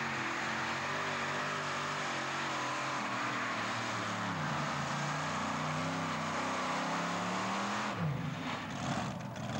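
Modified pulling tractor running at high revs under load as it pulls the sled, engine pitch wavering and then climbing. A little before eight seconds in, the pitch drops sharply as the engine comes off power.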